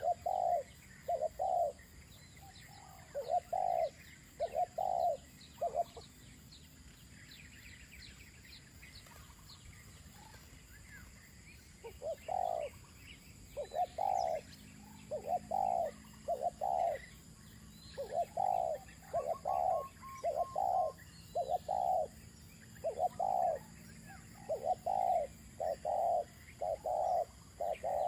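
Spotted doves cooing in repeated phrases of short, low coo notes. The cooing pauses for several seconds early on, then comes almost without a break through the second half. Faint high chirps of small birds sound behind it.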